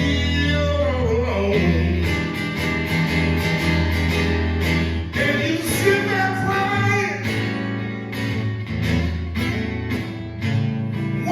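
Live acoustic blues: guitar accompaniment with a low bass line under a male voice singing drawn-out, bending notes between lyric lines.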